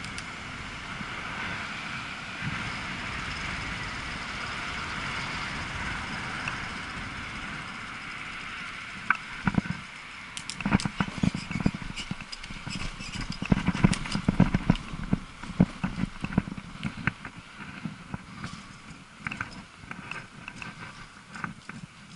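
E-bike riding along with a steady running whirr. From about nine seconds in it turns into a rapid, irregular clatter of knocks and rattles as the bike shakes over cobblestones.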